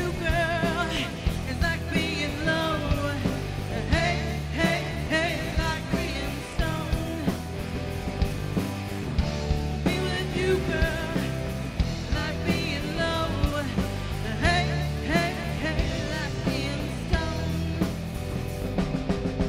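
Rock band playing: electric guitar with wavering, bent lead notes over bass and a steady drum beat.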